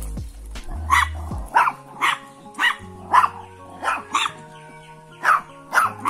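A dog barking repeatedly: about ten short sharp barks, roughly two a second, with a brief pause a little past the middle.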